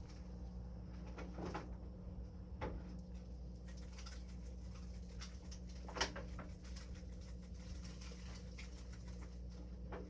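A spice shaker rattling in a few short bursts as seasoning goes onto turkey pieces, the loudest about six seconds in, over a steady low hum.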